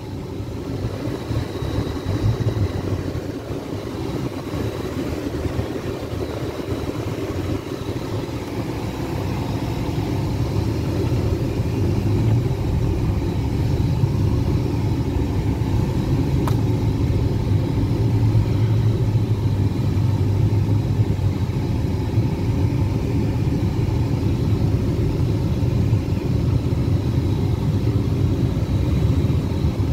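Ferrari 488 Spider's twin-turbo V8 running at low revs in first gear while the car is driven slowly, heard from inside the cabin: a steady low engine note that grows a little louder about ten seconds in.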